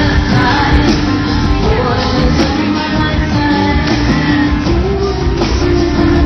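Live rock band performance, loud and steady, with a singer's voice over the band.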